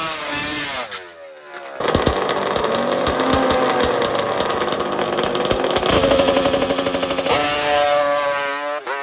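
Two-stroke drag racing motorcycle engine revving. The pitch falls away about a second in and the sound briefly drops, then it runs loud and hard with a rapid crackle, and settles into a steady high rev near the end.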